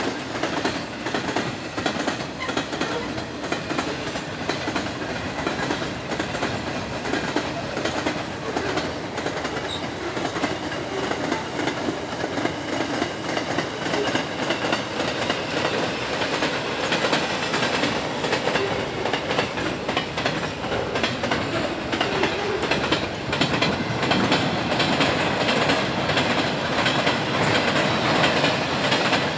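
Freight wagons loaded with steel coils rolling past close by, a steady rumble with the wheels clicking over rail joints.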